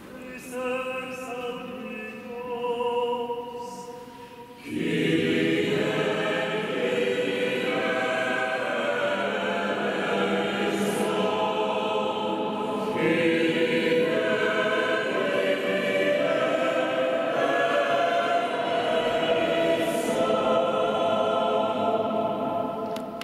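A choir singing: a softer sung line first, then the full choir comes in about five seconds in and carries on through the rest.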